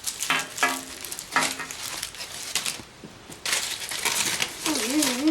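Wrappers of packaged chocolate bars crinkling and rustling in irregular bursts as the bars are handled and gathered up.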